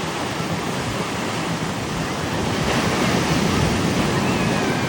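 Rough sea surf: waves breaking and rushing on the shore, swelling louder about halfway through.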